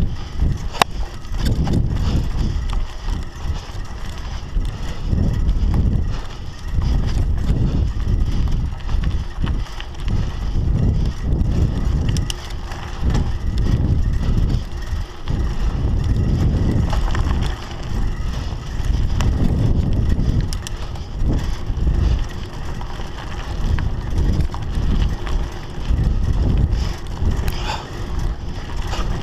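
Wind buffeting the GoPro's microphone over the rumble of a Scott Scale 960 hardtail mountain bike's tyres on dirt singletrack. A low, surging roar rises and falls, broken by a few sharp clicks and rattles from the bike going over bumps.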